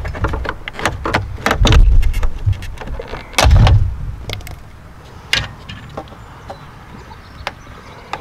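Hard plastic clicking, snapping and creaking as a headlight trim piece is pried off its clips, with a few loud dull thumps from handling the plastic headlight housing. After about four seconds the trim piece is off and only a few single clicks remain.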